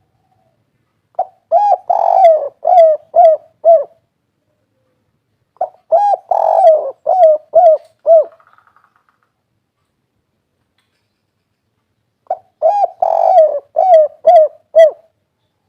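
Spotted dove (derkuku) singing its 'kuk 3' type song: three cooing phrases, each a quick run of about seven or eight coos with a longer, stronger coo near the start.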